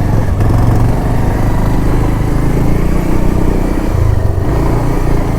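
Bajaj Pulsar 150's single-cylinder engine running steadily under load as the motorcycle climbs a rough off-road track carrying two riders.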